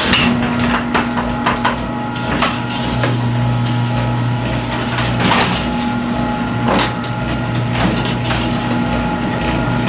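Sectional garage door running on its opener: a steady motor hum with the door's hinges and rollers rattling and clicking irregularly as it moves, the rattle that the hinge replacement is meant to cure.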